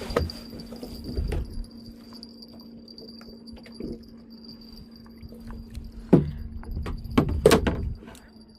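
Scattered knocks and light rattling, with the loudest knocks about six and about seven and a half seconds in, over a faint steady hum.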